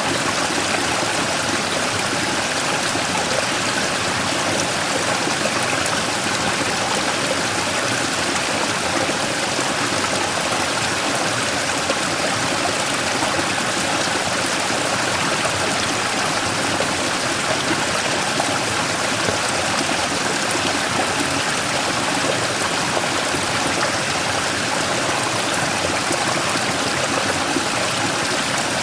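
Mountain stream rushing and splashing over a large rock in a small waterfall, a steady, unbroken sound of running water.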